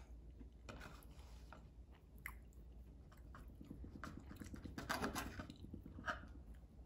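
Knife and fork cutting through a slice of toast on a wooden plate: a soft, crunchy sawing through the bread in the middle, with light clinks of the cutlery now and then.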